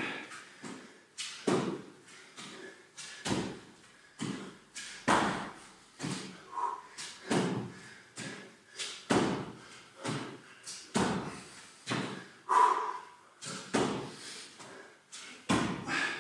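Bare feet thudding on a rubber gym floor in a steady rhythm, about one and a half thuds a second, as a person does spider mountain climbers, planting each foot beside the hand and back again.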